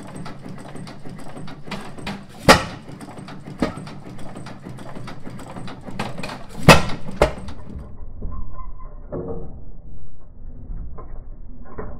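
1910 International Harvester Famous 8 hp single-cylinder hit-and-miss engine running. Sharp exhaust bangs from single firing strokes come a few seconds apart over the clatter of the valve gear and coasting flywheels. The engine is running a little rich, which the owner puts down to overfueling from a filled fuel bowl.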